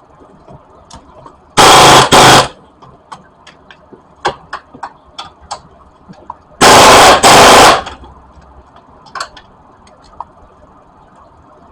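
Impact wrench driving in the bolts of a new transmission mount in two short, loud rattling bursts, each in two quick parts, with small metallic clicks of tools and fasteners between them.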